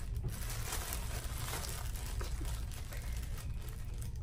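Bags and packaging being rummaged through by hand, with continuous crinkling and rustling, over a low steady hum.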